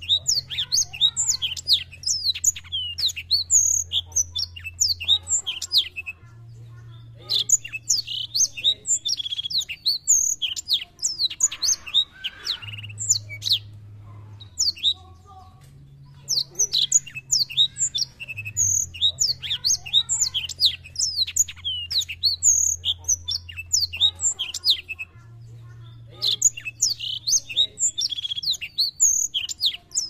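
Caged black-throated canary (blackthroat) in full song: long runs of rapid, high twittering notes, broken by pauses of one to three seconds between phrases.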